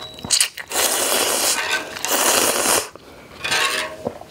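A person slurping instant ramyeon noodles up from chopsticks: three long, loud, hissing slurps with short pauses between.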